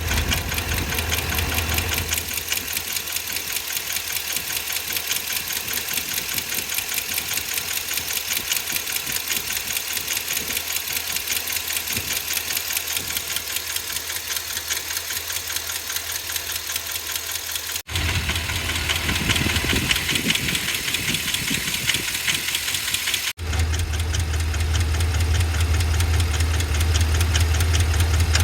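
Ford 7.3L Godzilla gasoline V8 running with a fast, even ticking and knocking: the sound of a failed valve lifter. The sound changes abruptly twice, about 18 and 23 seconds in, with a stronger low hum in the last part.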